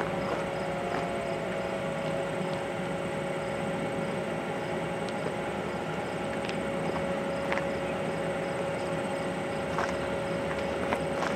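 Steady low rumble of Canadian Pacific diesel locomotives approaching from far off, with an insect chirping faintly about twice a second and a steady hum throughout.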